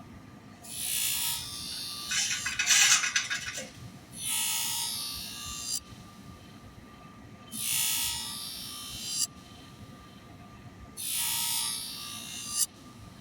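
Work Sharp Twice as Sharp electric scissor sharpener running with a steady motor hum, while a scissor blade is drawn through its slot across the spinning abrasive wheel five times. Each pass is a hissing grind about a second and a half long; the second pass is the loudest and rasps.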